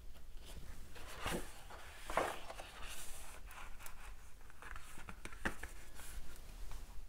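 Picture book being opened by hand, its pages turned and smoothed flat: scattered rustling and brushing of paper, the strongest about a second and two seconds in.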